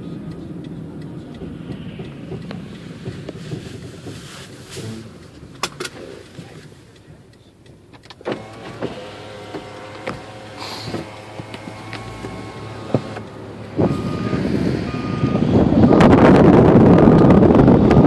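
Car driving, heard from inside the cabin: steady road noise that quietens for a moment as the car slows. About fourteen seconds in it jumps to a much louder rush of wind and road noise, with a side window open.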